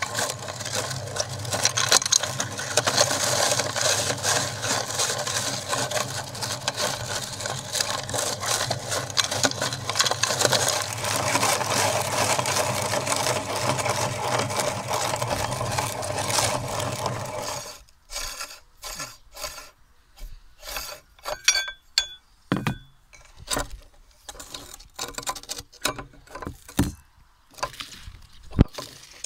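Hand-cranked metal meat grinder crushing hard lollipop candy into powder: a dense, steady crunching and grinding. It stops abruptly about two-thirds of the way through, leaving scattered clicks and knocks.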